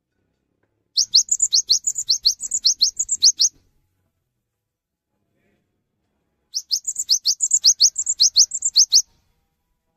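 Cinereous tit (gelatik batu) singing: two bursts of rapid, high, rising chirps, about six notes a second, the first about a second in and the second about halfway through, each lasting about two and a half seconds.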